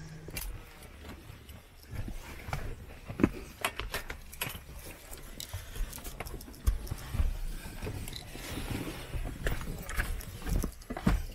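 Irregular knocks, clicks and rustling of people moving about and settling in the cabin of a small turboprop aircraft whose engine is not yet running, over a low rumble.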